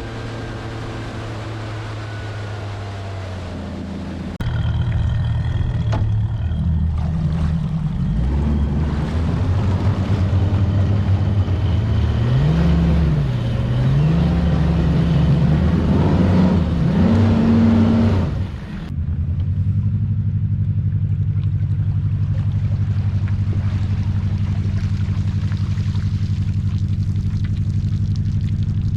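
Boat's outboard motor running, getting louder about four seconds in. The pitch rises and falls several times as the throttle is opened and eased. After a brief dip it settles into a steady run.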